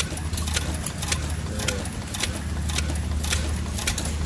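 Small side-shaft gasoline engine running, with sharp ticks from its moving parts about three times a second over a steady low hum.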